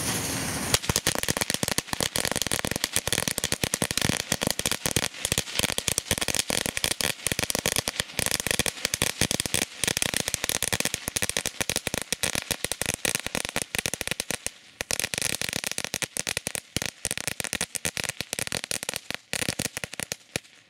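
A Nico Knallkette firecracker string of 500 connected bangers going off as it burns along its length: a fast, irregular string of sharp bangs and crackles, with a brief pause about fifteen seconds in.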